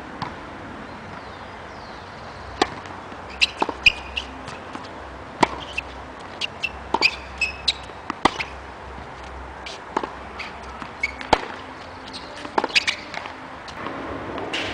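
Tennis ball being hit by rackets and bouncing on a hard court during a serve and rally: a series of sharp pops at irregular gaps, roughly one every second or so.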